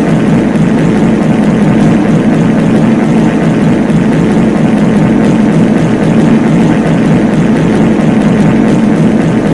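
Many reverb fart sound effects stacked over one another, merging into a loud, steady low rumble with no separate blasts standing out.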